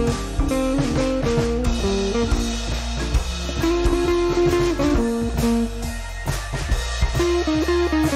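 Background music: a guitar melody over bass and drums, with a blues feel.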